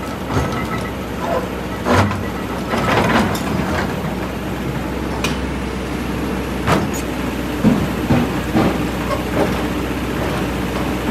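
Kobelco hydraulic excavator's diesel engine running steadily while its bucket works against a large boulder, with sharp knocks of steel on stone about two seconds in and near seven seconds, and smaller knocks and scrapes between.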